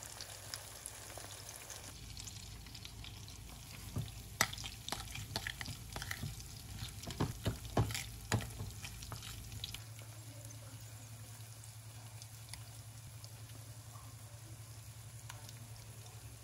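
Zucchini and chicken patties frying in oil in a pan, a steady sizzle. Through the middle comes a run of sharp clicks and scrapes as the batter is stirred in a glass bowl.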